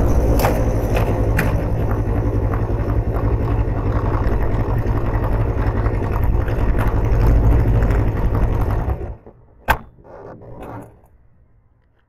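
Motorcycle engine running steadily, then switched off about nine seconds in. A single sharp click and some brief rustling follow.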